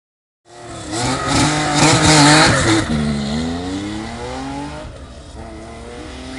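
Rally car passing close at full throttle, loudest about two seconds in, then pulling away with its engine note climbing, a brief break near five seconds for a gear change, and climbing again.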